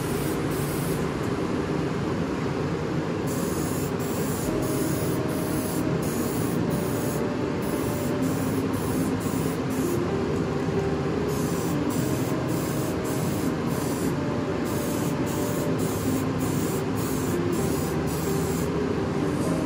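Aerosol spray-paint can hissing in repeated bursts, switching on and off, over a steady low background noise.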